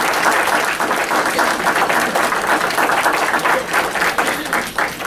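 Audience applauding: a dense, steady patter of clapping hands that thins slightly near the end.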